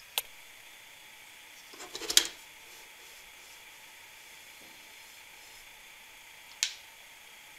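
Sheet-metal clicks and a short scrape as a kerosene heater's burner and wick assembly is lifted up off its fuel tank: one click at the start, the scrape about two seconds in, another click near the end, over a faint steady hiss.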